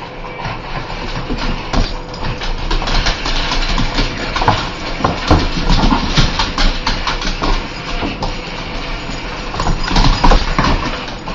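A dog growling and snarling in rough, uneven bursts, mixed with sharp scratching and clicking strokes.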